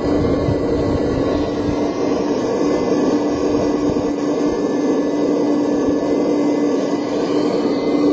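Scale Liebherr R 970 SME RC hydraulic excavator running, its hydraulic pump giving a loud, steady hum as the arm digs in sand and the upper body swings.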